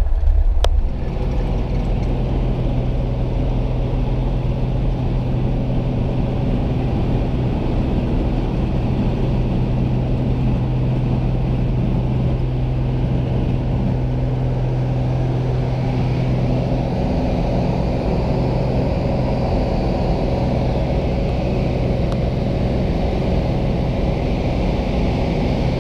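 Piston engine and propeller of a single-engine high-wing light aircraft, heard from inside the cabin as a steady, loud drone while the plane rolls over the grass field. Around two-thirds of the way in the sound gets fuller and noisier.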